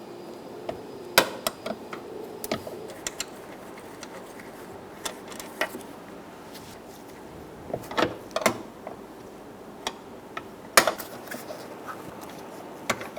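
A 12mm wrench working the steel hinge bolts on a Toyota Tacoma front door hinge: irregular metallic clicks and knocks of the tool against the bolts and hinge, loudest about a second in, around eight seconds in and near eleven seconds.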